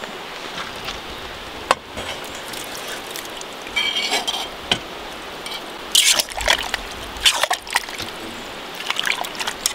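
A spoon stirring fried potatoes, meat and mushrooms together in a cooking pot: scattered scrapes, clinks and soft squelches over a steady hiss, busiest about six and nine seconds in.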